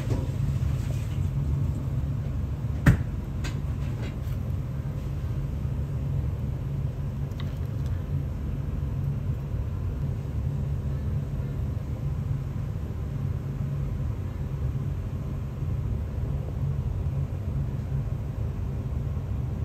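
A steady low background rumble, with one sharp click about three seconds in and a few lighter clicks soon after.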